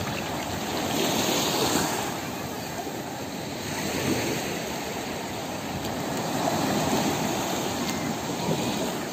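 Small waves breaking and washing up a sandy shore, the surf swelling and easing about every two to three seconds.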